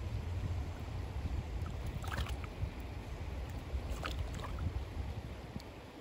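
Wind rumbling on the microphone over the wash of creek water. A few short sharp sounds come about two seconds in and again about four seconds in.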